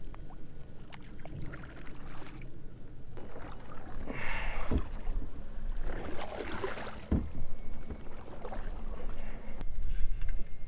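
Kayak paddle strokes splashing in the water, two louder strokes about four and seven seconds in, over a steady low rumble.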